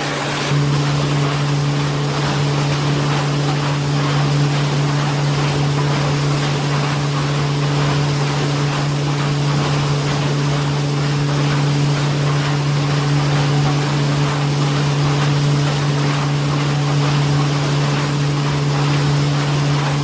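A machine running steadily: a constant low hum over an even rushing noise, unchanging throughout.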